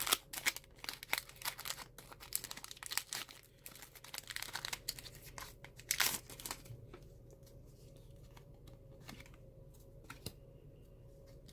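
Foil wrapper of a Pokémon trading-card booster pack being crinkled and torn open, a dense run of sharp crackles for about seven seconds, loudest about six seconds in, then only faint handling.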